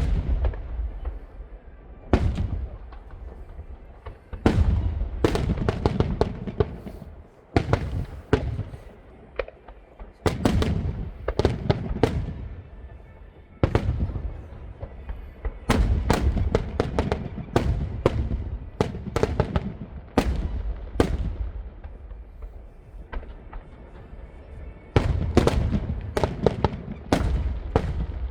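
Aerial fireworks bursting in volleys: clusters of sharp bangs with crackling and a low rumble rolling on between them, the densest runs in the middle and near the end.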